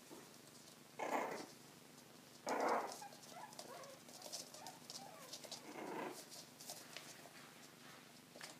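Four-week-old Coton de Tulear puppies playing together: three short puppy barks, about a second in, at about two and a half seconds and near six seconds, with soft wavering whines in between.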